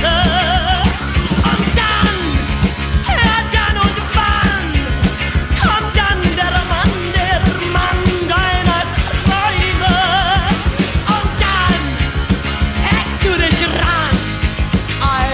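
Loud rock music with a fast, steady beat and a wavering melodic lead.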